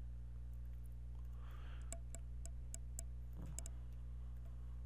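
Computer keyboard keys clicking as an IP address is typed: about eight quick keystrokes in the middle, over a steady low hum.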